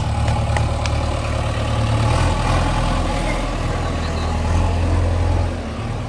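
JCB 3DX backhoe loader's diesel engine running steadily under light load, its low note shifting about two seconds in and rising again near the end.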